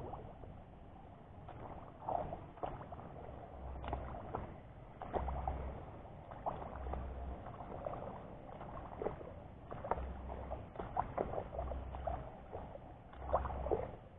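Footsteps squelching and sloshing through a muddy, water-filled furrow between rice plants, with a dull thud every second or two. Rice stalks rustle and scrape as they brush past.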